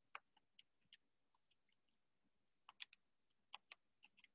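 Near silence with about a dozen faint, short clicks, scattered singly and in small clusters near the start, in the middle and near the end.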